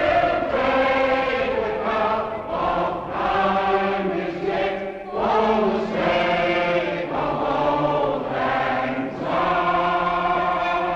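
A large crowd singing together in long sung phrases with short breaks between them.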